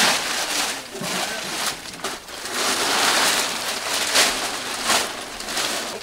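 Large plastic sheet rustling and crinkling in irregular swells as it is pulled and spread out by hand, then stepped on.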